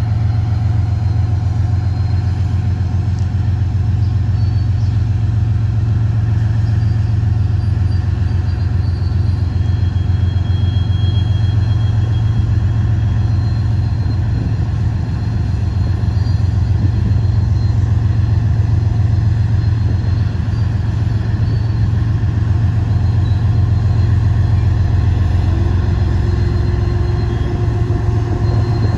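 Freight train rolling past, a loaded gravel train led by an Iowa Interstate diesel locomotive, making a loud, steady low rumble.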